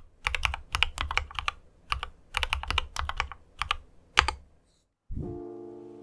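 Quick typing on a mechanical keyboard with tactile Holy Panda switches, a run of clacking keystrokes that stops about four seconds in. Music with a held chord comes in about a second later.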